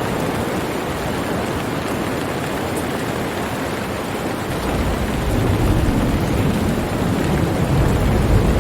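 Steady heavy rain hissing, joined about halfway through by a deep low rumble that rises and keeps on.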